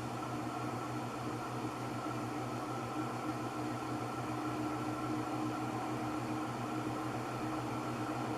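1984 Golden Fan 90 cm ceiling fan running on its second-highest speed, its motor giving a steady hum over a hiss of moving air. It is still coming up to speed on worn bearings, which the owner blames for the slow spin-up.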